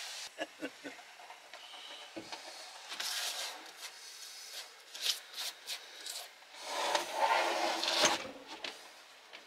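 Solid oak worktop handled onto kitchen units: a few light wood knocks and a thump as it is lowered into place, scattered clicks and rubbing, then a longer, louder scraping slide near the end as it is pushed along.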